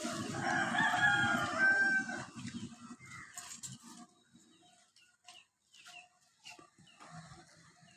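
A rooster crowing once, a pitched call of about two seconds at the start, followed by a few faint short calls.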